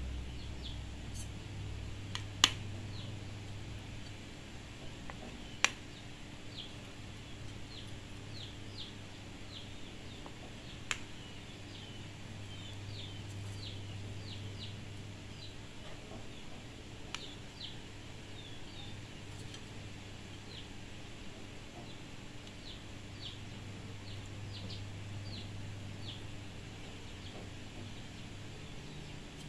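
A few sharp clinks of a metal spoon against an aluminium pot and plate while boiled fish are lifted out, the loudest about two seconds in and another about six seconds in. Birds chirp in clusters of short high notes over a low steady hum.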